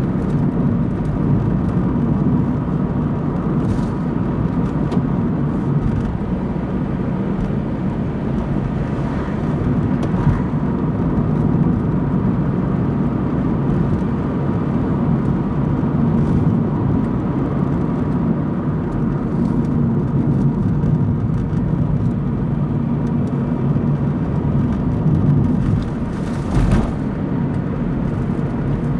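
A car driving at steady speed: continuous engine and tyre rumble, with a short sharper noise near the end.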